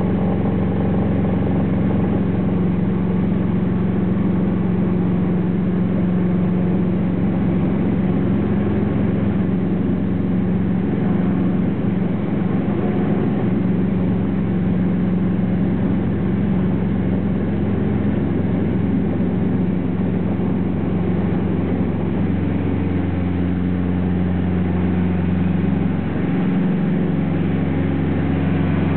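Light aircraft's piston engine and propeller running steadily, heard from inside the cabin.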